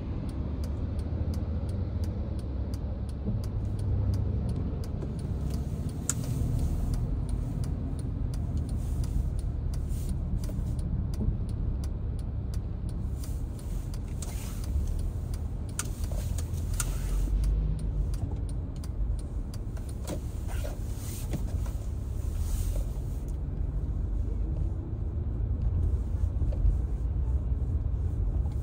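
Car driving on wet city streets, heard from inside the cabin: a steady low rumble of engine and road noise, with a few scattered faint ticks.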